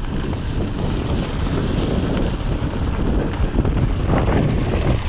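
Wind buffeting the microphone of a camera on a moving mountain bike: a loud, steady low rumble with a few scattered clicks.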